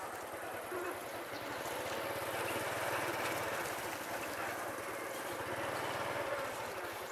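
Motorbike engine running as the bike rides along, a steady drone with rushing wind and road noise over it.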